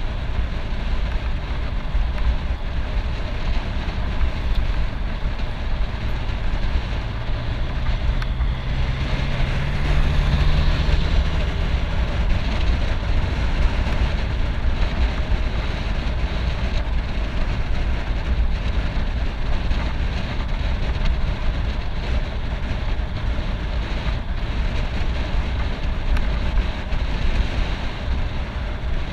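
Wind rushing over a bike-mounted camera's microphone, with tyre noise on rough asphalt, as a road bike rides at speed. About a third of the way in, a motor vehicle's engine note rises and swells for a few seconds, then fades back into the wind.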